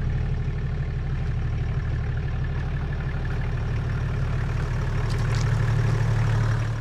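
Toyota LandCruiser Troopcarrier engine running steadily with a low hum, a little louder near the end, then cutting off.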